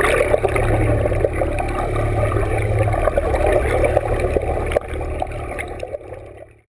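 Muffled underwater rush and bubbling of churned water heard through a camera held below the surface, over a steady low rumble. It fades away near the end and then stops.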